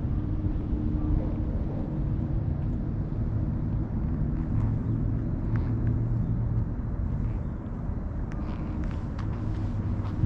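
Steady low outdoor rumble with a low hum running through it, and a few faint ticks near the end.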